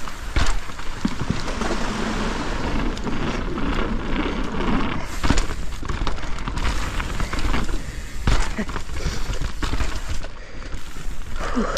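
Mountain bike descending a snowy trail: steady tyre and rolling noise with frequent knocks and rattles as it hits bumps.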